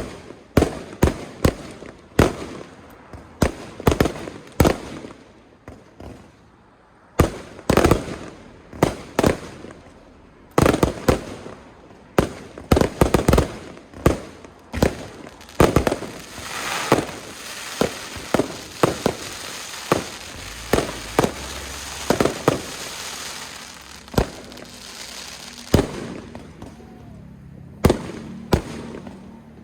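Aerial fireworks shells bursting in quick, irregular succession, about one or two bangs a second. A dense crackling hiss of crackle effects fills the middle of the volley, and single sharp bangs stand out again near the end.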